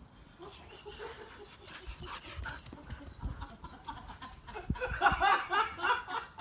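Animal calls: a quick run of short pitched sounds, loudest from about five seconds in.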